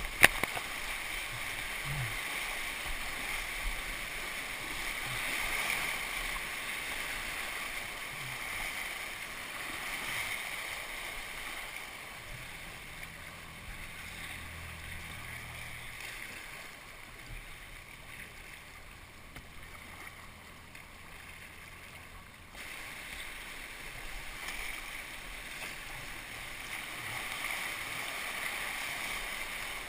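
Whitewater rapids rushing steadily around a kayak, with a single sharp knock right at the start. The rush dips quieter for about ten seconds in the middle and then comes back suddenly.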